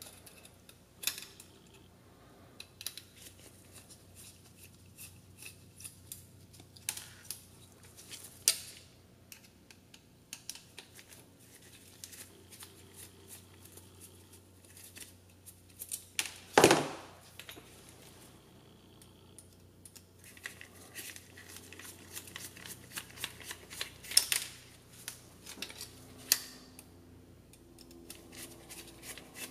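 Scattered small clicks and taps of hands and a small driver taking an accessory mount off a drone frame, with one louder knock about sixteen seconds in. A low drone of an aircraft flying over starts to come in near the end.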